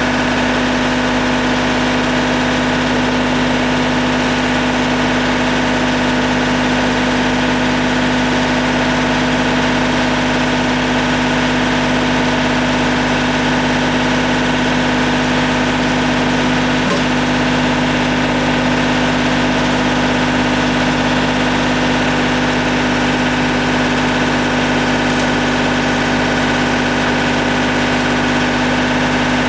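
Tractor engine running at a steady speed, with a constant even drone and hum that never changes in pitch or level.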